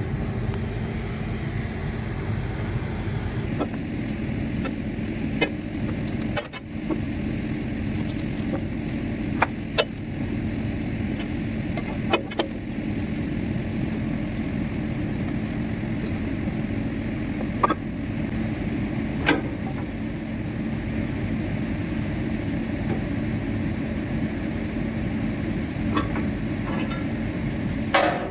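An engine running steadily, a low hum with a steady drone, with about ten sharp metallic clinks and knocks scattered through it from tools and chain being worked on heavy steel.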